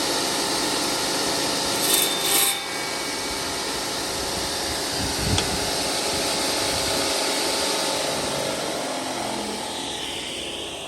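Edco DS18-5B 18-inch electric walk-behind concrete saw running, a steady loud noise of motor and blade. It briefly surges louder about two seconds in and grows quieter over the last few seconds.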